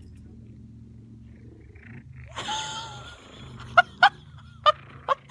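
A cat yowling: one drawn-out cry a little over two seconds in, then four short, sharp cries.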